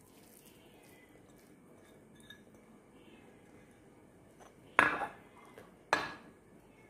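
Two sharp clinks of glass kitchen dishes knocking, about a second apart, near the end; before them only faint handling.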